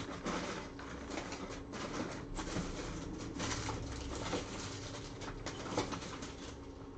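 Rummaging: irregular rustles, knocks and clatters of objects being moved about in a search for a screwdriver.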